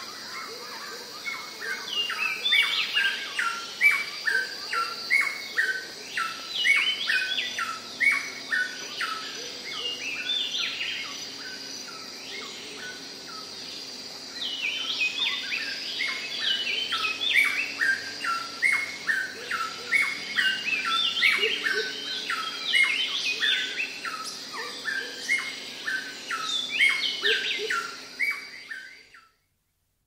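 Rainforest ambience: a bird sings close by in runs of quick, falling whistled notes, with other birds replying in the distance, over a steady high insect drone. The sound fades out near the end.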